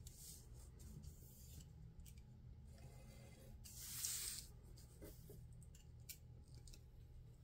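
Snap-off utility knife blade cutting paper: faint, short scraping strokes, with a louder sliding rustle about four seconds in as the sheet is moved across the cutting mat.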